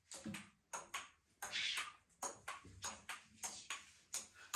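Table tennis rally: a plastic ping-pong ball clicking off paddles and bouncing on a wooden tabletop, a few light taps a second.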